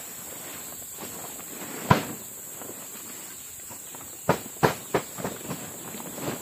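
A steady high-pitched insect drone with several sharp knocks over it. One knock comes about two seconds in, then a quick run of three about four to five seconds in, followed by a few lighter taps.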